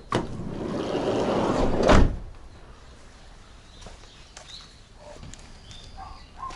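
A sliding door dragged open along its track for about two seconds, the noise growing louder, ending in a sharp bang as it hits its stop.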